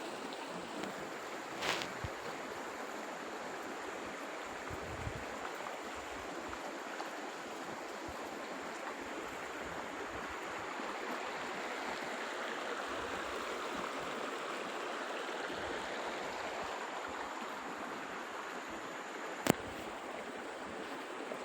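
Water of a stream flowing steadily, an even rushing hiss. A single sharp click about a second and a half before the end.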